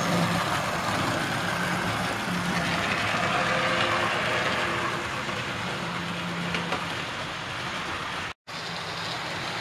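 Model railway tank locomotive hauling coaches: a steady electric-motor hum and wheels rattling on the track, swelling as the train passes, then cutting out for a moment near the end.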